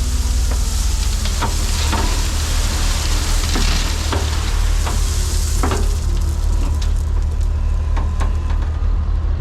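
Gravel fill pouring into a truck bed, a dense crackling hiss with many irregular sharp ticks of stones striking, over the steady low rumble of an engine running.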